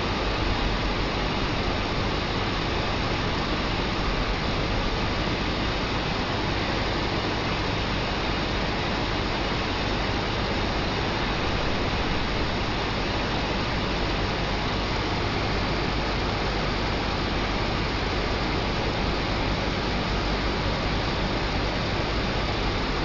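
Steady, unchanging hiss with a low hum underneath and no distinct events.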